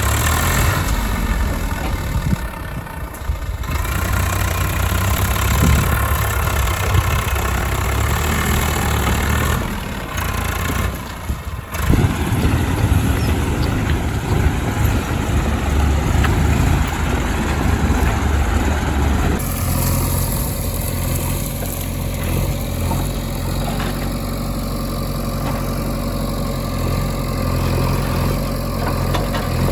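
Diesel engines of a backhoe loader and farm tractors running, the engine note rising and falling with the work. The sound changes abruptly about two-thirds through into a steadier idling drone.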